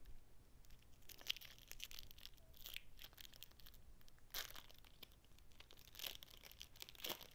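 Faint rustling and crinkling, on and off, of baseball trading cards being handled and sorted.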